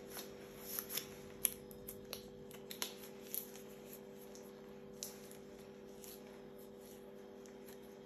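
Tight latex gloves rubbed and worked over the fingers, giving a run of short crackles and snaps in the first few seconds and one more about five seconds in, over a steady low hum.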